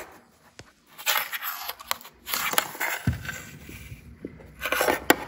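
Scattered small clicks and scrapes of a hard drive magnet being moved over a metal tabletop, picking up small multilayer ceramic capacitors, which shows the capacitors are magnetic. The first second is nearly quiet, and a low rumble of handling joins a few seconds in.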